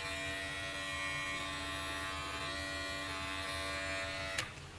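Electric pet hair clipper running with a steady buzz, then switched off with a click near the end.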